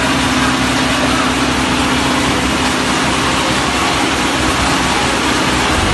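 Diesel engine of a HAMAC DHBT15 concrete mixer pump running steadily, with a constant droning hum.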